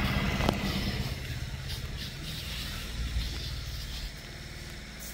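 Small engine driving a Bordeaux-mixture spray pump, running steadily with a low hum. There is a sharp click about half a second in, and the sound drops a little in level about four seconds in.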